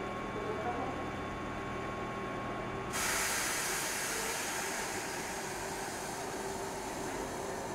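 Double-decker RER electric train standing at the platform with a steady electrical hum and a thin whine. About three seconds in the whine cuts out and a loud, steady hiss of compressed air starts abruptly and keeps going.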